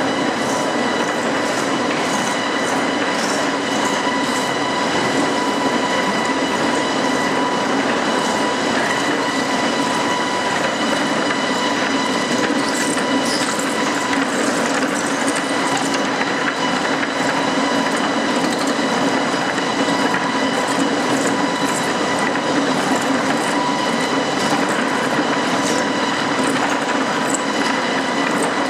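Lumber planer infeed system running 1x4 southern yellow pine: a chain transfer deck and two pineapple feed rolls carry the boards in. It makes a steady mechanical rattle with scattered clicks over a constant whine.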